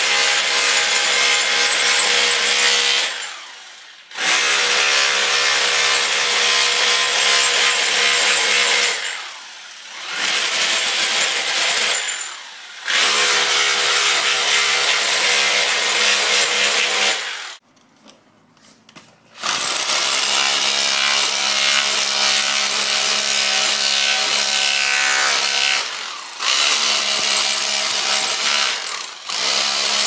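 Bosch hammer drill with a spade bit hammering, chipping ceramic floor tiles off a concrete slab. It runs in long bursts with a handful of short pauses; the longest is about two seconds, a little past the middle.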